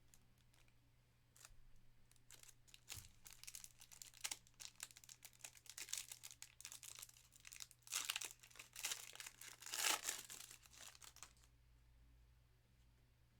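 Plastic wrapper of a Panini Absolute Football card pack being torn open and crinkled, a crackling rustle that builds and is loudest about eight and ten seconds in, then stops a little before the end.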